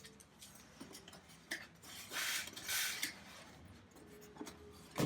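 Packaging being handled in a large cardboard box: foam and cardboard rubbing and scraping, with two longer scrapes about two and three seconds in, a few small clicks, and a sharp knock at the very end.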